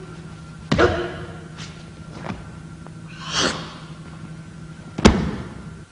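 Thuds of bodies hitting the mat as jujutsu techniques are applied: three sharp impacts spread across the few seconds, the last the loudest, with a softer rushing swell in between and a steady low hum underneath.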